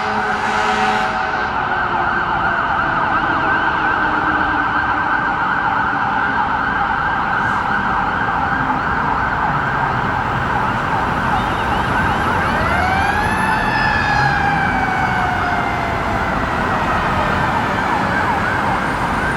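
2019 Spartan MetroStar fire engine running its electronic siren on yelp, a fast repeating warble. About two-thirds of the way through, a mechanical Q siren winds up and then slowly winds down under it.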